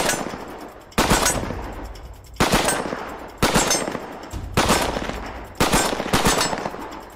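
StG 44 assault rifle firing in 7.92×33mm Kurz on full automatic: about seven short bursts, roughly one a second, each a quick string of shots followed by an echo dying away.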